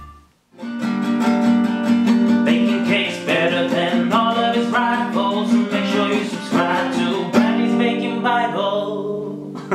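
A man singing a short jingle while strumming an acoustic guitar, starting about half a second in and ending on a ringing chord.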